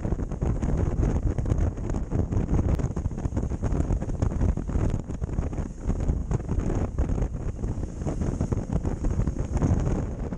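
Wind buffeting the microphone of a motorcycle-mounted camera while the bike is ridden along, uneven and rumbling, with the motorcycle's running and road noise beneath it.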